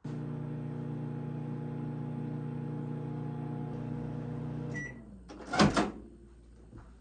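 Microwave oven running with a steady hum that stops about five seconds in, followed by a short beep and then a loud clunk of the microwave door being opened.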